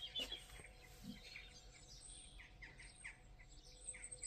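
Faint birdsong outdoors: scattered short, high chirps from small wild birds, several in quick succession midway through.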